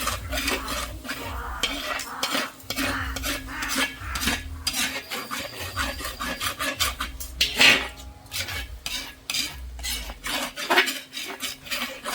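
A spoon stirring a pot of duck curry: a quick, irregular run of scrapes and knocks against the pot.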